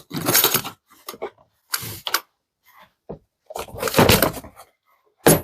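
A plastic carrying case being handled and opened: a series of irregular rustles, scrapes and clicks, with the loudest scrape about four seconds in and a sharp click near the end.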